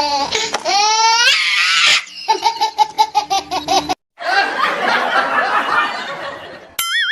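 Laughter sound effects: a person laughing in quick, evenly repeated bursts, broken by a rising squeal, then a noisier stretch of laughter. A short wobbling cartoon tone comes near the end.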